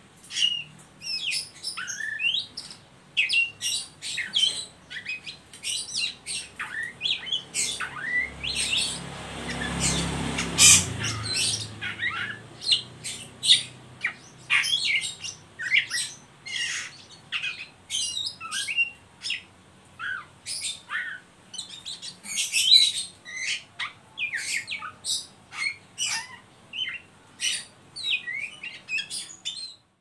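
Oriental magpie-robin (kacer, black-breasted form) singing in its rapid, chattering 'ngeriwik' style: a dense string of short, sharp, high calls. A few seconds of low rustling noise come about ten seconds in.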